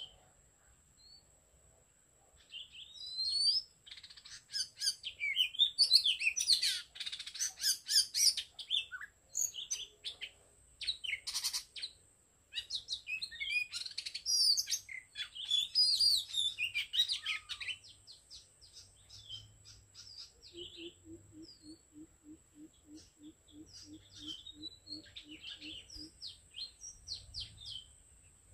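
Oriental magpie-robin singing: varied whistles, chirps and trills, loudest through the first two-thirds, then softer rapid notes. A thin steady high tone runs underneath, and a series of low evenly spaced notes, about three a second, comes in near the end.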